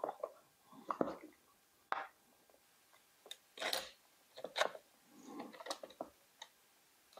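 Handling noises of a trim router and wooden blocks on a workbench: scattered light knocks, clicks and short scrapes as the router with its edge guide is set down and positioned on the wood. The router motor is not running.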